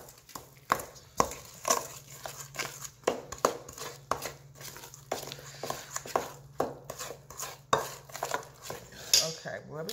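Metal spoon stirring thick muffin batter in a stainless-steel mixing bowl, with irregular clinks and scrapes as it knocks against the bowl's sides, about one or two a second.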